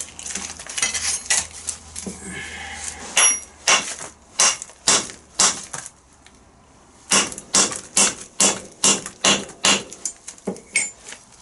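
Steel hammer driving a drift against the seized pin of a classic Mini rear radius arm's handbrake quadrant. The blows are sharp and metallic and come in two runs: about five spaced half a second apart, then after a short pause about eight in quicker succession, as the rusted pin starts to move.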